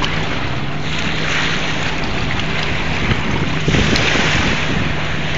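Jet ski engine running at speed out on the water, a steady drone, with wind buffeting the microphone.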